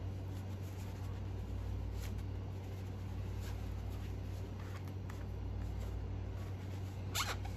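Small nitro engine parts being wiped and handled: a few faint clicks over a steady low hum, with a brief high squeak near the end.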